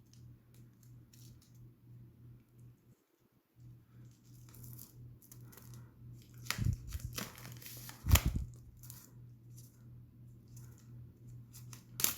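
Pull-tab tear strip being pulled around the wrapping of an Apple Magic Keyboard box: tearing and crinkling rustles, with a few sharp snaps or knocks, the loudest about 8 seconds in. A steady low hum sits underneath.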